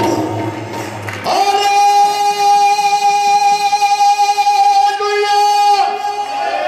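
Amplified worship singing: a voice holds one long high note for about four seconds, a second note joins near the end, and it slides down.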